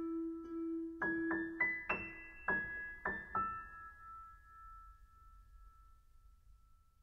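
Closing background music on a piano-like keyboard. A held note gives way to a quick run of struck notes about a second in, ending on a single note that slowly fades out.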